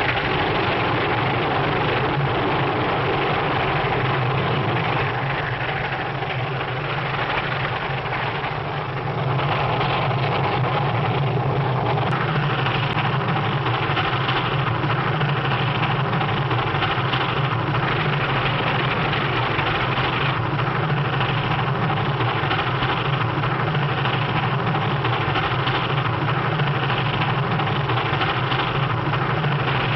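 Steam locomotive running at speed, a steady dense rumble and clatter of the train in an early sound-film recording. It dips slightly about a third of the way in, then runs on evenly.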